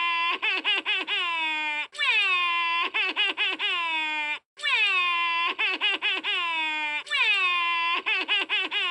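Daisy Duck's cartoon voice crying: a high, nasal wail that falls in pitch, followed by a quick run of stuttering sobs. The same phrase repeats about every two and a half seconds, like a loop.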